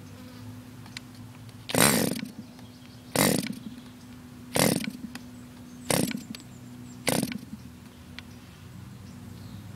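A model airplane's O.S. Max FP .40 two-stroke glow engine being hand-flipped, firing for a fraction of a second on each flip without catching and running: five short bursts about a second and a half apart.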